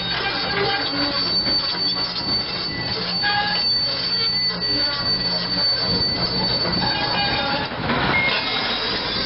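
1994 Hyundai Robex 290LC excavator's steel crawler tracks squealing with high steady tones as the machine turns on dirt, over its six-cylinder diesel engine running steadily underneath.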